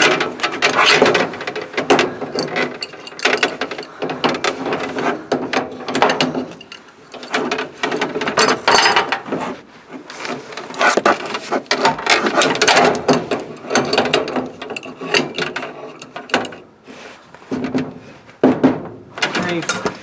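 A wrench tightening a flare-nut fitting onto a propane gas line: a long run of quick metallic clicks and scrapes.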